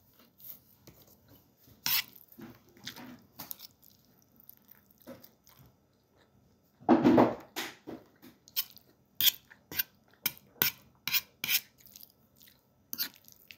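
A person eating at the table: chewing, with cutlery clicking and clinking against a plate. There is one louder thump about halfway through, and a run of sharp clicks about twice a second near the end.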